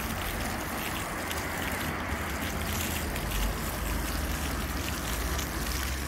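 Small ground-level fountain jets spouting and splashing onto wet paving, a steady rush of water, with a low steady rumble underneath.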